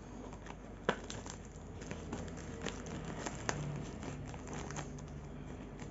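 Scissors cutting into a parcel's black plastic wrapping and packing tape: plastic crinkling with a few sharp snips.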